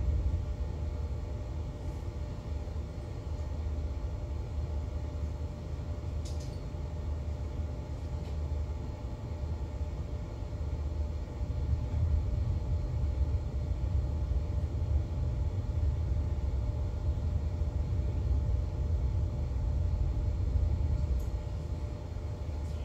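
Low, uneven rumble aboard a motor yacht under way in harbour, with a faint steady hum and a single faint click about six seconds in.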